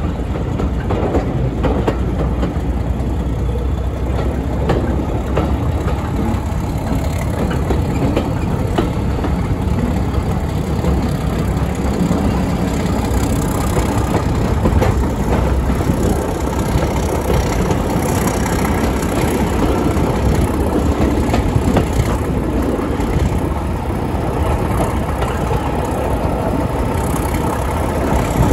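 Steady train noise with the English Electric diesel engine of Class 31 locomotive 31128 running.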